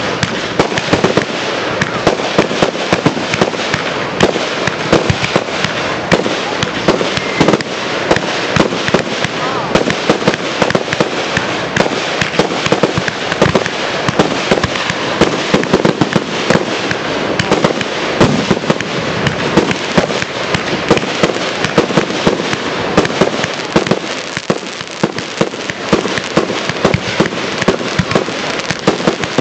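Professional aerial fireworks shells bursting in a rapid, continuous barrage: a dense stream of loud bangs with no let-up.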